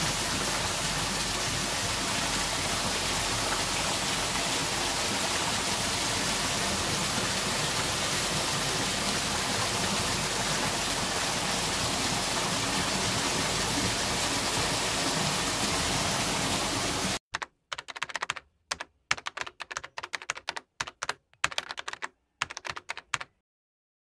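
A steady, even rushing noise that holds unchanged for about seventeen seconds and then stops abruptly. It is followed by a run of quick, irregular clicks and taps with short gaps, which ends in silence shortly before the end.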